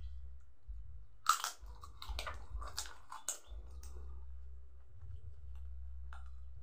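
A person chewing and biting food close to the microphone: a short run of crunches and mouth smacks lasting about two seconds, the first the loudest, over a faint steady low hum.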